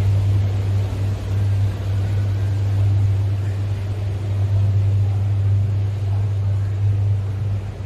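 Steady low engine hum over a wash of outdoor background noise.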